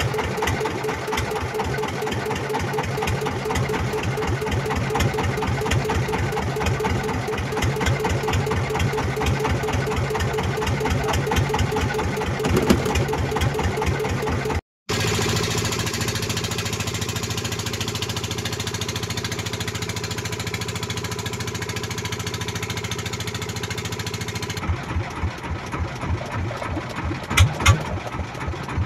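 A small wooden fishing boat's engine running with a rapid, even thumping. About halfway through it switches abruptly to a smoother steady hum, and the thumping comes back near the end with a few louder knocks.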